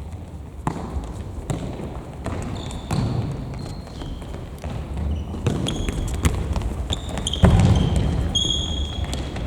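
Futsal play on an indoor gym court: the ball thumping as it is kicked and bounces on the floor, the hardest strike about two-thirds of the way in. Sneakers squeak sharply on the floor several times, mostly in the second half.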